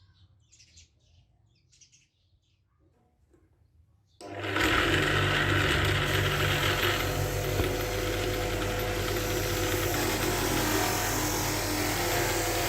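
Faint bird chirps at first. About four seconds in, an electric power tool motor starts abruptly and runs steadily with a low hum and a gritty working noise, as used in restoring a rusty folding knife.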